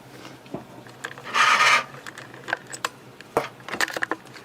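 Handling of a circuit board: a short rubbing scrape about a second and a half in, the loudest sound, followed by scattered small clicks and taps.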